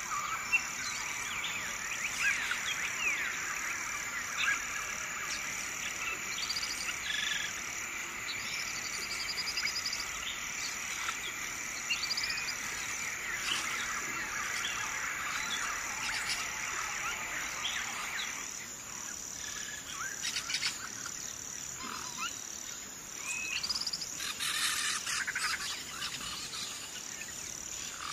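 Busy chirping of birds and insects: a steady high trill runs under many short whistled calls and glides. The calls thin out about two-thirds of the way through, and a few scratchy rustles come near the end.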